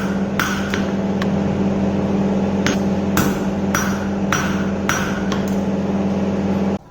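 A hammer striking steel in two quick runs of blows, about two a second, each with a short metallic ring, over a steady low machine hum. Both cut off suddenly near the end.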